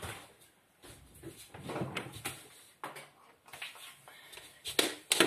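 Irregular rustling and knocking of someone moving about and handling things, with footsteps and a few sharper knocks near the end as he walks back up.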